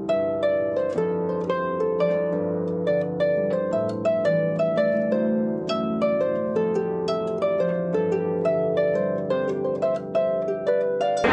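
Background music: a harp playing a melody of quick plucked notes, several a second.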